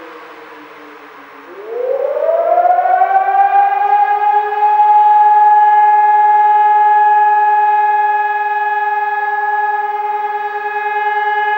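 Civil defence siren winding down to a low pitch, then winding back up over about two seconds to a steady, loud high tone that holds.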